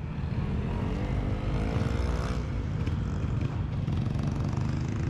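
Road traffic at an intersection: a steady rumble of engines, with a motorcycle accelerating through it about a second in, its engine rising in pitch for a second or so.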